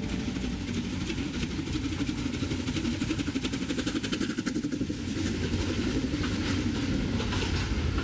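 Narrow-gauge steam train running, a fast, even rattle of beats over a steady low rumble.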